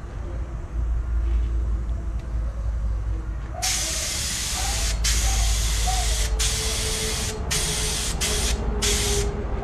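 Vinyl paint being sprayed in six hissing bursts, the first and longest of them starting about three and a half seconds in, with brief pauses between.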